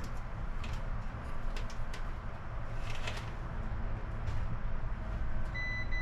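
Faint handling clicks over a steady low hum. About five and a half seconds in, a multimeter's continuity beep starts as a steady high tone, which signals that the two probes have found a connected circuit.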